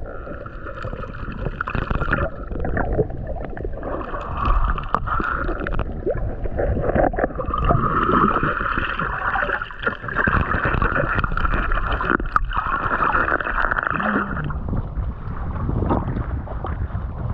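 Sea water heard through a submerged action camera's housing: muffled gurgling and sloshing with scattered clicks and knocks. About fourteen seconds in, the steady hiss drops away and the sound thins out.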